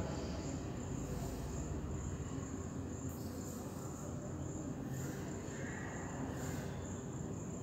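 Insects chirring in a steady, high-pitched drone, with a few faint scrapes of chalk on a blackboard as short lines are drawn.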